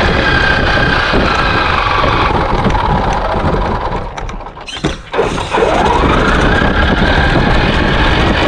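Traxxas X-Maxx RC truck's brushless electric motor and gears whining as it pushes a plow blade through snow, over a constant rushing of snow and wind. The whine falls as the truck slows almost to a stop about four seconds in, then rises again as it speeds off.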